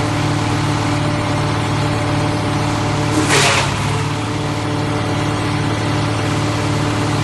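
Diesel engine of a mobile wood chipper running steadily, with a short, loud rush of noise about three seconds in.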